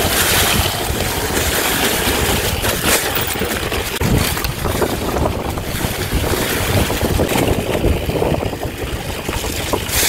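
Mountain bike rolling down a forest singletrack: tyres crackling over dry fallen leaves and the bike rattling, with steady wind rushing over the handlebar-level microphone.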